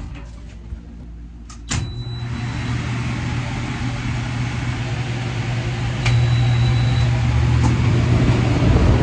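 Stand-up tanning booth switching on with a click: its UV lamps and cooling fans start up as a steady electric hum and rush of air, with a short high beep. The hum grows louder about six seconds in, with a second beep.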